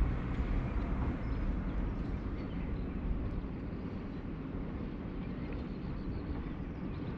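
Distant, steady drone of a fleet of motorboats speeding out to sea together, a low rumble that eases off slightly as the boats move away.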